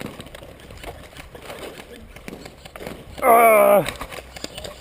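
A person gives one loud, wavering, wordless yell, under a second long, about three seconds in. Faint scattered crackles and rustling are heard before and after it.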